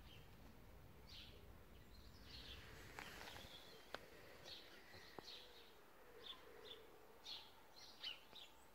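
Faint garden birdsong: scattered short chirps over a quiet outdoor background, with a few faint clicks near the middle.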